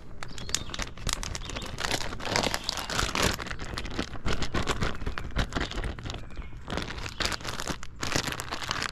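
Plastic zipper-lock bag crinkling and rustling as it is sealed and squeezed in the hands, working hot sauce through the fish fillets inside.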